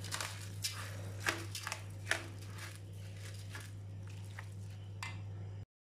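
Dolma filling of raw rice, minced meat, tomato paste and olive oil being kneaded by hand in a stainless steel bowl: irregular wet squishing and grainy rustling over a steady low hum. The mixing sounds thin out after about three and a half seconds, and the sound cuts out briefly near the end.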